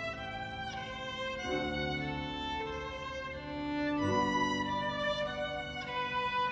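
Solo violin bowed in long, sustained notes, moving to a new note every second or so.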